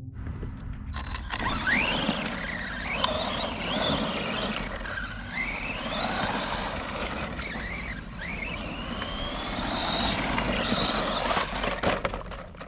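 Redcat Camo TT Pro RC trophy truck's brushless motor whining as it is throttled on and off, the pitch rising and falling again and again. The truck runs on a 3S LiPo, and a rushing noise sits underneath the whine. It starts about a second in and drops away near the end.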